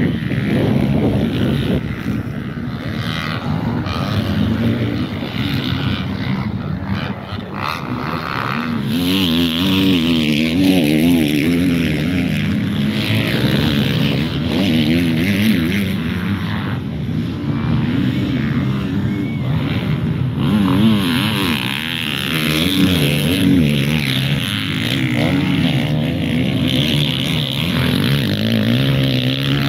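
Motocross dirt bike engines racing around a dirt track, revving up and down as the riders accelerate and shift, the pitch rising and falling again and again. The engine sound is loudest and most wavering from about a third of the way in.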